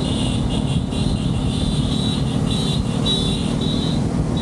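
Yamaha R15 V3's single-cylinder engine running steadily at cruising speed, mixed with wind and road rumble on the rider's microphone.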